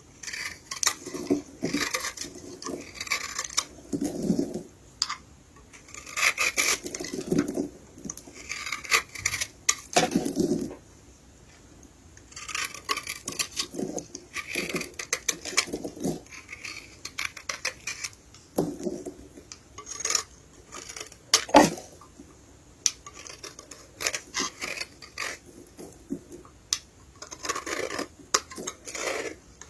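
Dry soap being crushed and scraped, with irregular crackling, crumbling bursts and sharp clicks. There is a brief lull about 11 seconds in and a sharp, loud crack a little past 21 seconds.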